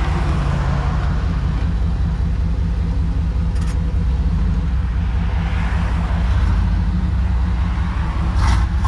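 1990s GM full-size pickup truck's engine running steadily at idle, a low rumble.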